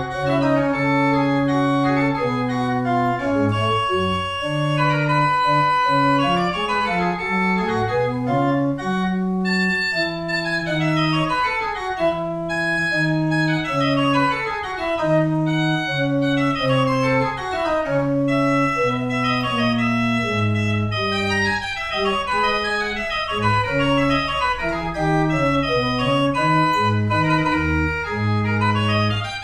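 Pipe organ playing a brisk Baroque piece, with quick running passages over a steadier bass line.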